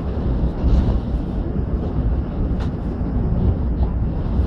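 Steady low rumble of a passenger train running at speed, heard from inside the coach as wheels on the track and the carriage rattling. One sharp click comes about two and a half seconds in.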